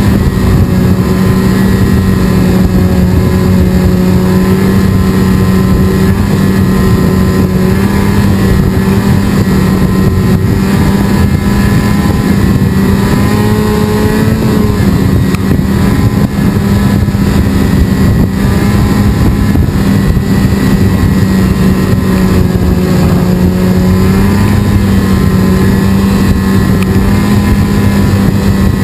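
Snowmobile engine running steadily at trail speed, heard from on the machine itself. Its pitch rises a little about halfway through, then settles back.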